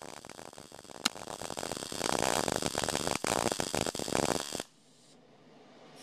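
MIG welding arc from a Longevity MIGWELD 200S inverter welder laying a bead: a dense, steady crackle, louder from about two seconds in, that cuts off suddenly about four and a half seconds in when the arc stops.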